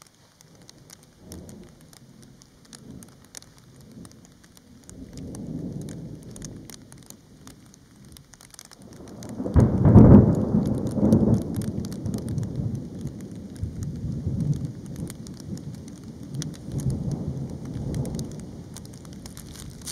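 Thunder rumbling, building to a loud clap about halfway through and rolling on for several seconds after, with light rain falling throughout.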